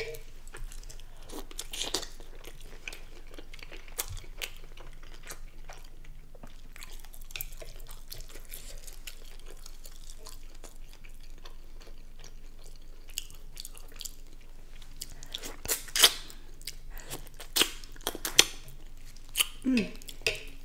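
Close-miked chewing of king crab meat in seafood-boil sauce, with soft wet mouth sounds and light crunches. In the last few seconds a cluster of sharp clicks and snaps comes as a head-on shrimp is handled.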